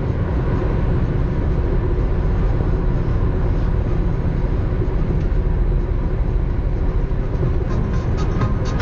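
Interior sound of a BMW 523i with racing headers and a dual exhaust at high speed: the engine running steadily at high revs under a dense, deep drone of engine, exhaust and road noise.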